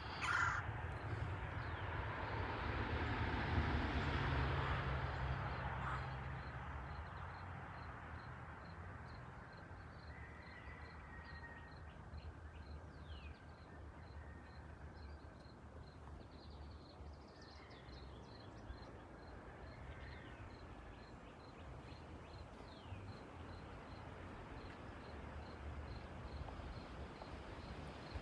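Harsh bird calls outdoors, heard a few times. Early on a broad rushing noise swells, peaks about four seconds in and fades. A faint high ticking repeats about twice a second.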